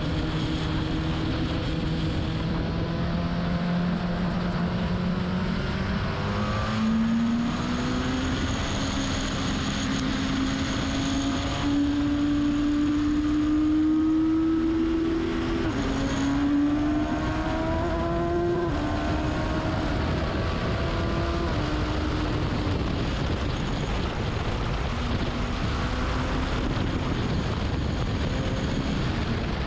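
Racing car engine running hard under load, its pitch climbing and then dropping sharply at gear changes, twice in quick succession past the middle. Steady wind and road noise runs underneath.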